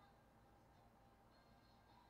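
Near silence with faint background music.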